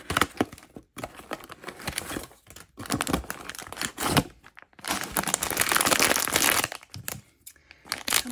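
Packaging being unwrapped by hand: plastic wrap torn off a small cardboard mystery box, then a foil blind bag crinkling as it is pulled out and handled. The sound comes in irregular rustles and tears, with the longest and loudest stretch of crinkling about five seconds in.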